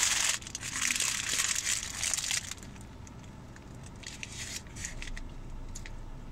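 McDonald's hamburger's paper wrapper crinkling as it is handled and opened, loud for about the first two and a half seconds, then dying down to a few faint clicks.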